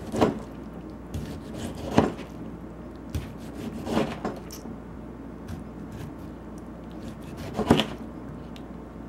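Kitchen knife dicing a tomato on a thin cutting mat: a handful of uneven knocks of the blade through the flesh onto the board, a second or two apart, the loudest near the end. A faint steady hum runs underneath.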